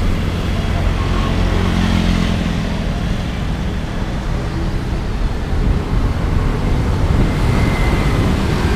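Steady city traffic noise heard while riding a bicycle along the street, with cars and motorcycles passing and a constant low rumble of wind on the microphone.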